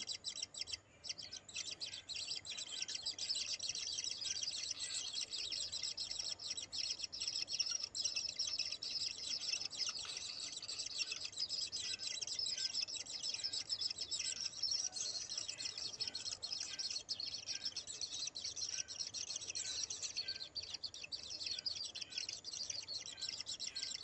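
Kingfisher nestlings begging in the nest burrow: a steady, dense, high-pitched chirring chatter.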